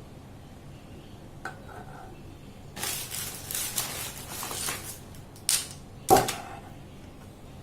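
Metal spoon clinking and scraping against a pan while thick ginger candy syrup is spooned out: a light clink about one and a half seconds in, about two seconds of scraping, then two sharper clinks, the last the loudest and briefly ringing.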